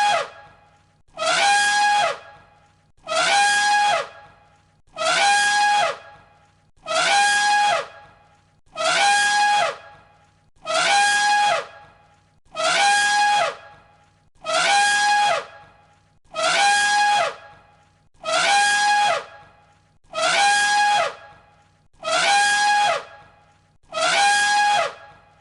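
Elephant trumpeting: the same shrill trumpet call repeated as a loop, one about every two seconds. Each call lasts about a second, holds a steady pitch and then drops at the end.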